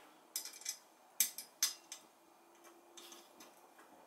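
Sharp metallic clicks and taps of the shotgun quad rail's metal parts being handled and seated around the barrel: about five distinct clicks in the first two seconds, then fainter small ticks.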